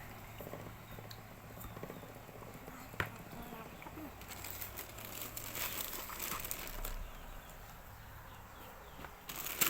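Plastic parcel packaging crinkling and rustling as it is handled, with one sharp click about three seconds in.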